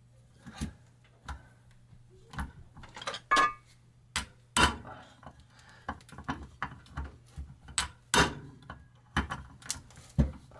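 Irregular metallic clinks and knocks of tools and parts on an outboard lower-unit gear case being worked apart to get the pivot pin out. A few sharper, louder knocks stand out about four and a half, eight and ten seconds in.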